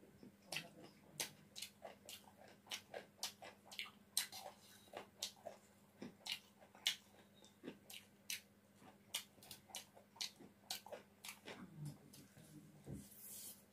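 Close-up mouth sounds of a person chewing a big mouthful of fried rice: irregular wet smacking clicks, a few a second.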